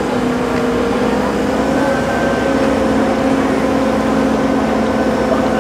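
Crane engine running steadily under load while hoisting a race boat, its pitch stepping up a little about a second in and then holding.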